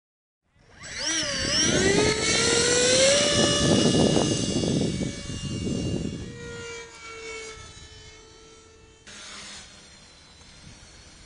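Radio-controlled model aircraft in flight, its electric motor making a whine that wavers, rises in pitch and holds. The whine is loud at first and fades as the aircraft moves away. About nine seconds in it switches abruptly to a fainter, steady motor hum from a small multirotor hovering low.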